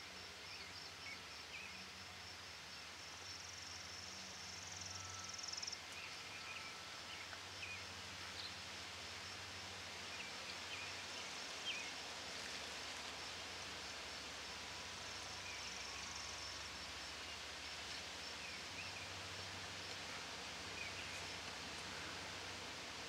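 Outdoor daytime ambience: an insect's steady pulsed trill, with a louder buzz that cuts off suddenly about six seconds in and comes back briefly later, and scattered short bird chirps over a faint hiss.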